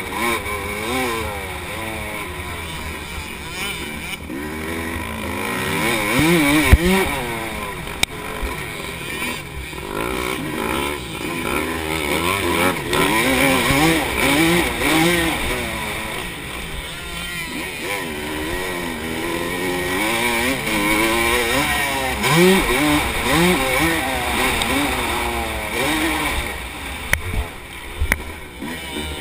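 Dirt bike engine revving up and down over and over as the rider accelerates and shifts on a motocross track, heard from the rider's own bike with wind noise on the microphone. A sharp knock about seven seconds in.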